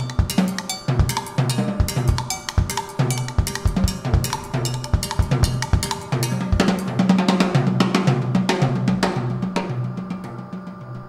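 Background music: a drum kit playing a busy beat over a bass line. The drums stop near the end, leaving held notes ringing on.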